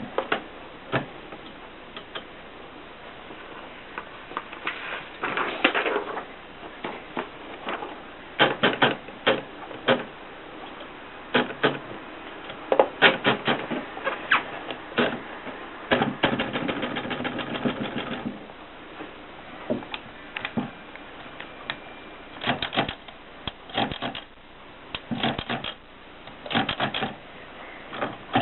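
Adler Contessa portable typewriter being typed on: irregular bursts of key strikes separated by short pauses. About halfway through there is a fast, even run of clicks lasting about two seconds.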